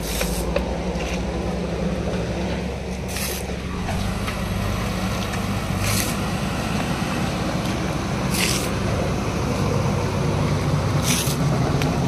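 JCB backhoe loader's diesel engine running steadily as the machine drives along with its front bucket raised. A short scraping hiss comes about every two and a half to three seconds.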